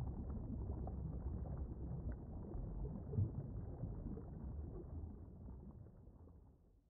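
Muffled underwater ambience: a low, rumbling wash of water noise. It fades out to silence over the last two seconds or so.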